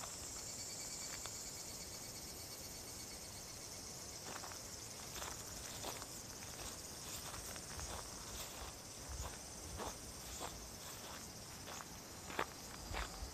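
Evening insects chirring in a steady, high-pitched chorus, with footsteps on gravel and grass starting about four seconds in and coming more often towards the end.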